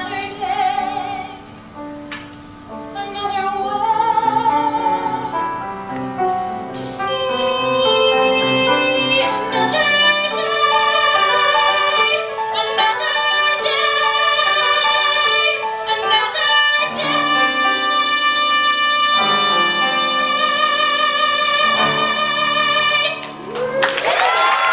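A woman singing a Broadway-style song live, closing on a long held high note with vibrato. Audience applause and cheering break out right at the end.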